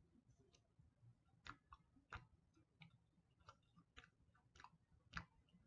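Near silence with faint, irregular mouth clicks and smacks of someone chewing a soft marshmallow candy.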